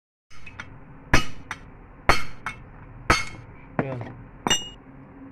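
Hammer blows on a chisel held against the old bearing of a Mahindra 265 DI rear axle shaft, breaking off a bearing worn to excessive play. Five heavy metal-on-metal strikes come about a second apart, with lighter taps between them; the last strike rings.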